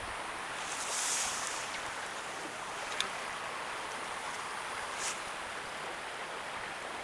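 Steady rush of stream water, with a brief high hiss about a second in and two short ticks later on.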